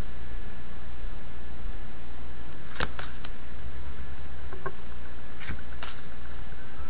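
Tarot cards being laid down on a table: four short card clicks in two quick pairs, over a steady low hum.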